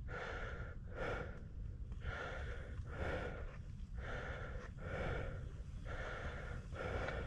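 A person breathing hard close to the microphone, heavy rhythmic breaths about one a second, over a steady low rumble of wind on the microphone.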